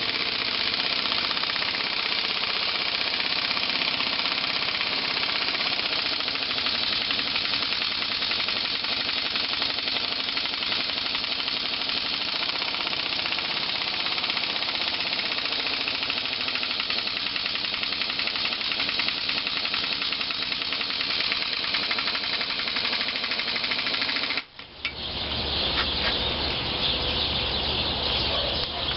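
Pneumatic air hammer rattling continuously against a gib-key puller on a hit-and-miss engine's flywheel hub, trying to drive out the gib key; the air pressure is too low to shift it. About 24 seconds in the hammering stops briefly, and a steady machine noise with more low rumble follows.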